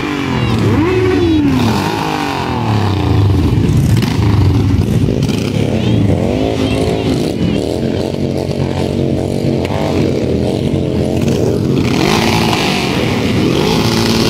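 A procession of cruiser motorcycles riding past one after another, several engines running at once, their pitch rising and falling as each bike goes by.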